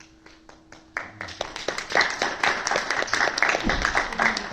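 Audience applause: a few scattered hand claps, then about a second in the clapping swells into dense, steady applause from many people.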